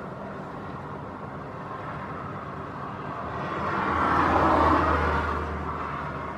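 Strong gusty wind on the microphone over the steady drone of an approaching airliner. A gust swells about three seconds in, peaks and eases, adding a low buffeting rumble.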